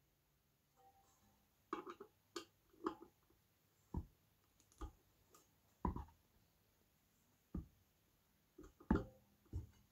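Irregular knocks and clicks of tools and metal parts being handled while taking apart a ceiling fan motor, about a dozen short, separate hits, a few of them dull thuds.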